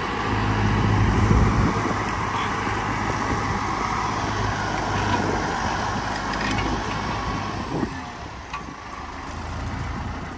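John Deere 6110 tractor's four-cylinder diesel engine running steadily under load as it pulls an onion undercutter through the soil. The engine is somewhat quieter in the last couple of seconds.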